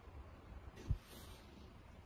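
A single dull thump about a second in, with a brief rustle around it, over faint low handling rumble.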